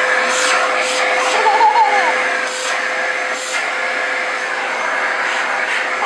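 Vacuum cleaner running steadily, a constant rushing hum with a steady whine in it. A toddler's brief high voice comes in about one and a half seconds in.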